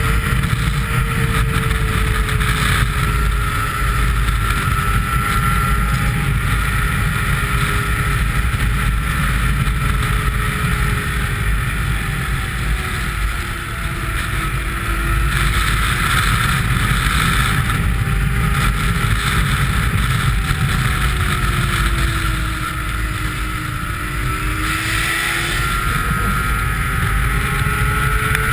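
Snowmobile engine running at trail speed, its pitch dipping as the throttle eases about halfway through and again near the end, then climbing back. Heavy wind buffets the microphone.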